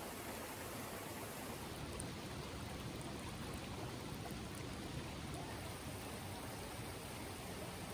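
Steady rush of the River Trevillet's running water, an even hiss with no separate splashes or drops standing out.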